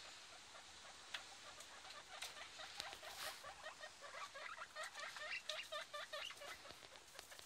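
Guinea pigs squeaking in quick runs of short notes, busiest in the second half, over faint crunching and rustling as food and hay are chewed.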